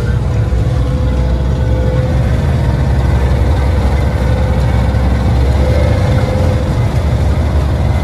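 Twin Yamaha 250 hp outboard motors running, a steady low rumble with a faint steady hum above it. The engines are angled apart and thrusting against each other under joystick control to push the boat sideways.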